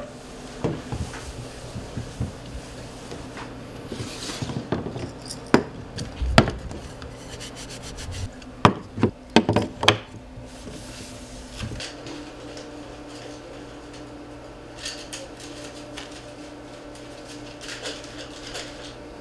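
Small condiment shakers set down and slid about on a wooden table: scattered light knocks and clicks with some rubbing. A steady hum comes in about twelve seconds in.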